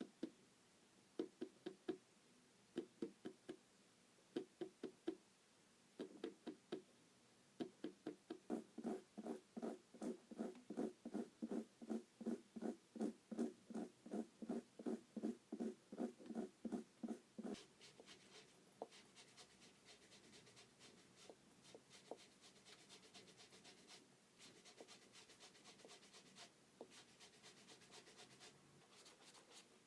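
Hands working on a sneaker: short rhythmic rubbing or tapping strokes, a few scattered ones at first and then a steady run at about three a second, giving way about two-thirds through to softer scratching and rustling.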